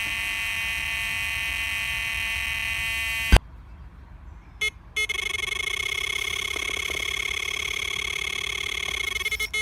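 Electronic carp bite alarms screaming in a continuous tone as a carp runs with the line. One alarm tone stops with a sharp click about three and a half seconds in. After a short beep, a lower alarm tone with a fast flutter sounds steadily to the end.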